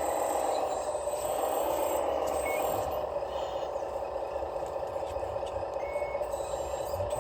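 Radio-controlled scale model's electric drive motor and gearbox whining steadily, the pitch dipping and shifting slightly as the model's speed changes.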